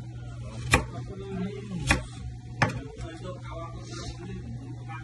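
Knife chopping watermelon on a plastic cutting board: three sharp knocks in the first three seconds, over a steady low hum.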